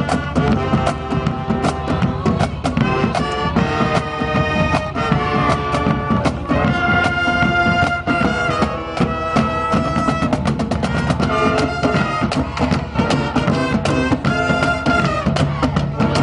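Brass band music: horns playing held notes over a steady, dense drum beat.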